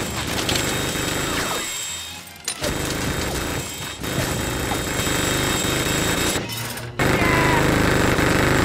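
Film soundtrack with score and effects, then about seven seconds in a minigun suddenly opens fire in a continuous, rapid, buzzing stream of shots.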